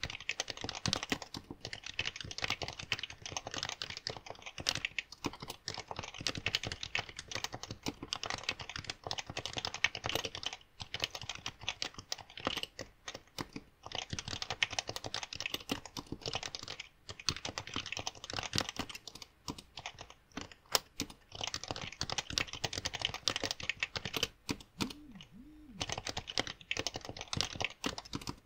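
Happy Hacking Keyboard being touch-typed fast, a dense run of keystrokes broken by a few short pauses, picked up by a smartphone headset microphone.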